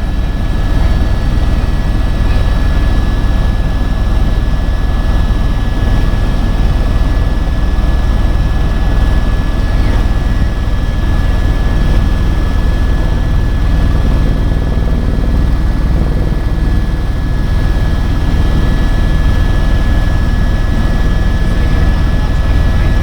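Helicopter in flight heard from inside the cabin: a loud, steady drone of rotor and engine, with a thin steady whine running above it.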